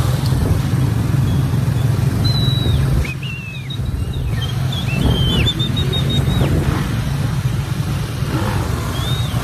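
A group of small motorcycles riding together, their engines running, with heavy wind rumble on the phone's microphone from riding. A few short, high whistles cut through, about two seconds in, again near the middle, and near the end.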